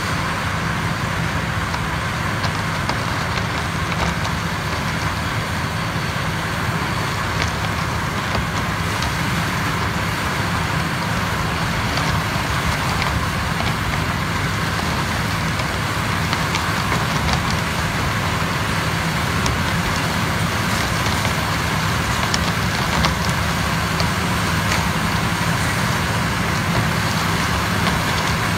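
Small basket-type sugarcane harvester running steadily under load as it cuts standing cane, with scattered sharp cracks as the stalks are chopped.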